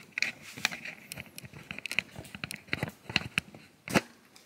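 Rustling, crinkling and a run of sharp clicks and taps as things are handled, with one louder knock just before the end.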